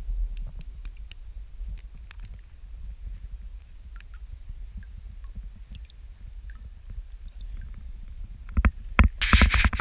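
Knocks and handling noise in a small fishing boat: a low steady rumble with scattered faint clicks, then a quick run of loud knocks near the end.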